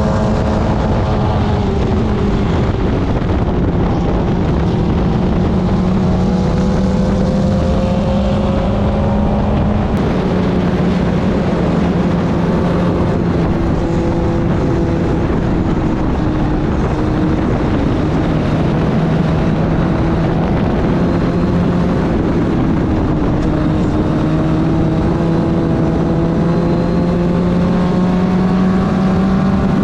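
Club Ford race car's engine running hard at racing speed, its pitch rising and falling with throttle and gear changes, including a sharp drop about ten seconds in, with wind rushing over the microphone.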